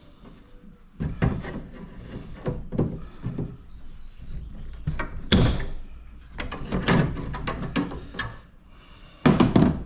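Metal and plastic parts of an air conditioning unit being handled and pulled apart during teardown: a run of irregular clunks and rattles, with the loudest knocks about five seconds in and near the end.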